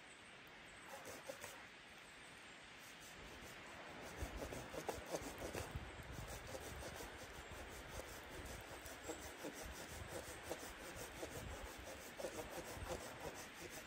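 A folding hand saw with a 7-TPI carbon steel blade sawing dead wood in repeated back-and-forth strokes. The strokes grow louder about four seconds in.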